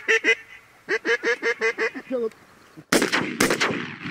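Geese honking in a quick run of short, evenly spaced calls, then two shotgun shots about half a second apart, about three seconds in, with a rolling echo.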